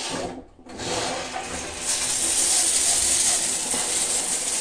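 Newly installed 8.5 kW electric shower running on its low setting, water spraying from the shower head as a steady hiss. The spray gets louder about two seconds in.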